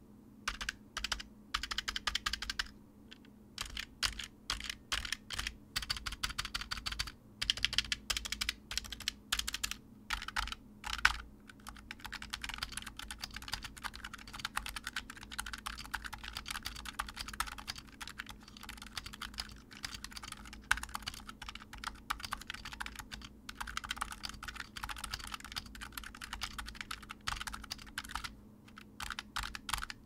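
Typing on a Razer Huntsman Mini 60% keyboard with red linear opto-mechanical switches, whose stems carry silicone dampening strips. Single keystrokes with short pauses come first, then fast continuous typing for the second half. The keys return without a pinging resonance from the switch bar.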